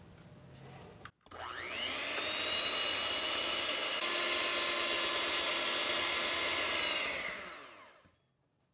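Electric hand mixer whipping meringue: the motor starts about a second in with a rising whine, runs steadily with its beaters in the stiff egg-white foam, then winds down and stops near the end.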